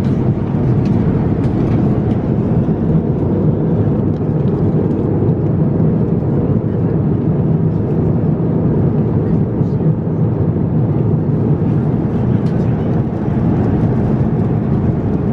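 Steady low roar of an Airbus A350-900 cabin at cruise, from airflow and engines, heard from inside the economy cabin.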